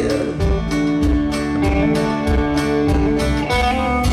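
Live rock band playing an instrumental passage: strummed guitars holding sustained chords over a steady beat of drum hits.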